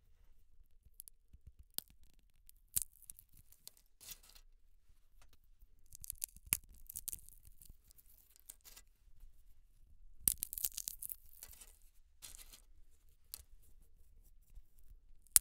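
Sunflower seeds being cracked open and shelled between the fingers, very close to the microphone: scattered sharp cracks of the husks and short spells of crisp crackling, with the loudest crack about ten seconds in.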